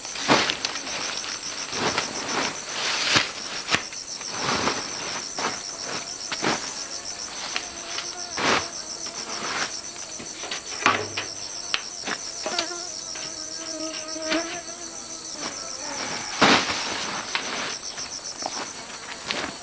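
Crickets or similar insects chirping steadily in a high, pulsing trill, with sharp knocks or scrapes every second or two.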